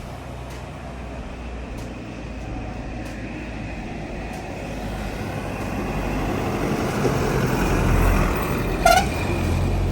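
A motor vehicle's engine and road noise, growing steadily louder, with a short horn toot just before the end.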